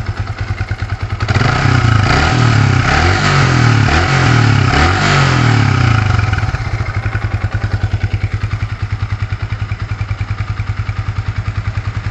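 Yamaha Vixion's 150 cc single-cylinder four-stroke engine running through its stock exhaust: idling, then revved up and down several times from about a second in, and settling back to a steady idle about halfway through.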